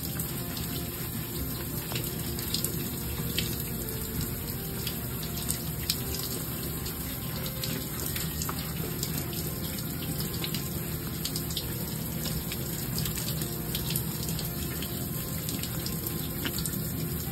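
Shower water running steadily and spattering into a bathtub, with small splashes and drips.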